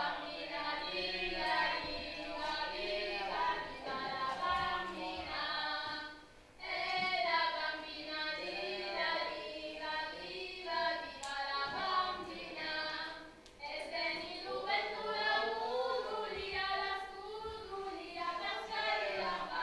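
A group of voices singing a song together, choir-like, with musical backing. It breaks off briefly twice, about a third and two-thirds of the way through.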